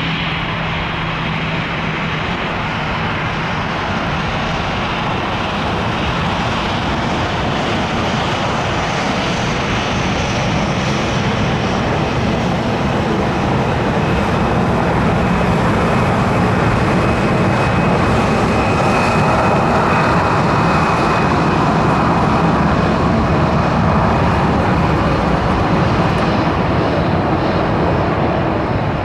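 Jet airliner's engines, a steady rushing noise that slowly swells to its loudest about two-thirds of the way through and then eases off, with a thin high whine over the loudest stretch.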